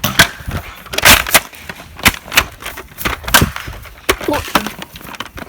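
A quick, irregular series of loud crunching knocks and clatters, several each second, starting abruptly.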